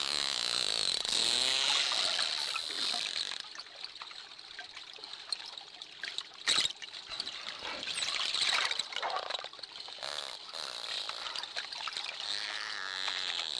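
Dolphins calling underwater: whistles that glide up and down in pitch, mixed with rapid clicking and buzzing pulses over a wash of water noise, with one sharp click about six and a half seconds in.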